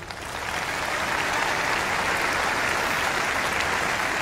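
A large audience applauding, building over the first second and then holding steady.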